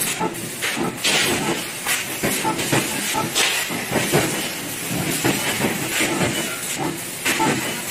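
P2060A fiber laser tube cutting machine running: a steady hiss with irregular metallic knocks and clanks every half second or so.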